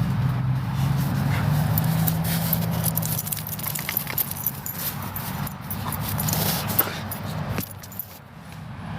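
A road vehicle's engine running close by, a steady low hum that fades after about three seconds, with many light clicks and jingles over it. The sound drops off briefly near the end.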